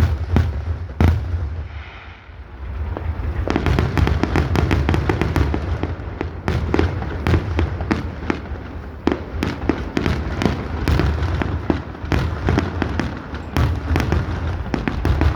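Fireworks going off: two sharp bangs at the start, then after a short lull a dense, rapid barrage of bangs and crackling that keeps going from about three and a half seconds in.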